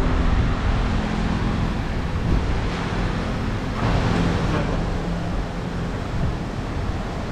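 Steady rushing air noise from a workshop fan, with a faint low hum underneath.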